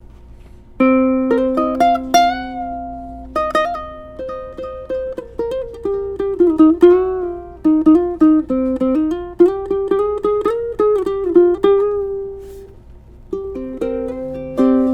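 Islander MOT-4 ukulele played solo: a melody of plucked notes, each ringing and dying away, starting about a second in, with a short pause near the end before the playing resumes.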